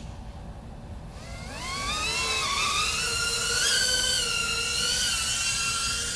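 Small 2-inch FPV quadcopter's brushless motors spooling up about a second in, a rising whine as it lifts off. The whine then holds high, wavering a little in pitch as the throttle changes in flight.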